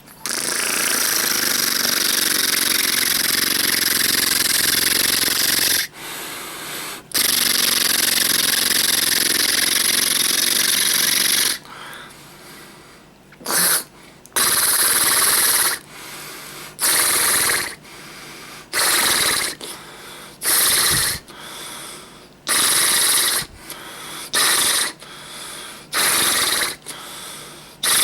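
Imitation fart sounds made by a person: two long, loud sputtering blasts of about six and four and a half seconds, then a run of short ones a second or less long with short pauses between.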